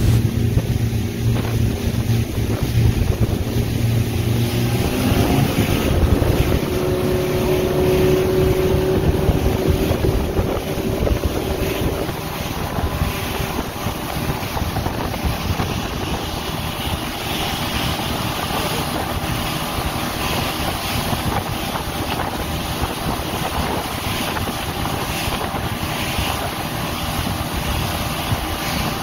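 Pontoon boat's outboard motor running under way. A few seconds in, its pitch climbs as the boat speeds up. After that the rush of wind on the microphone and water spraying off the pontoon tubes largely covers the engine.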